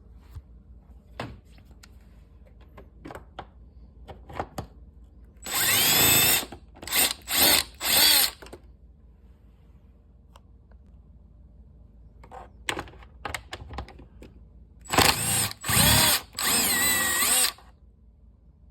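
Cordless impact driver with a magnetic 8 mm socket on an extension backing out screws: a longer run and then three short bursts about six seconds in, and another cluster of bursts near the end, with small clicks of handling between.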